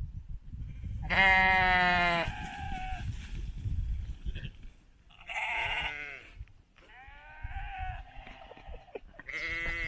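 Sheep bleating: about four calls, the loudest a long wavering bleat about a second in, then others in the middle and a deep one near the end.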